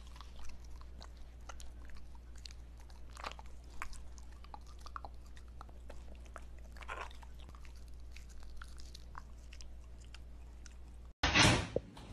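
A dog chewing raw broccoli close to a microphone: scattered crisp crunches and bites over a steady low hum. Near the end it gives way abruptly to a much louder burst of noise.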